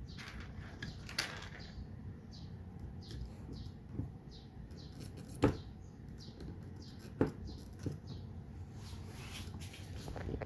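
A handful of sharp clicks and knocks from small parts and screws being handled and fitted during the rack assembly, the loudest about halfway through. Under them run a faint steady hum and a series of short high chirps, about two a second.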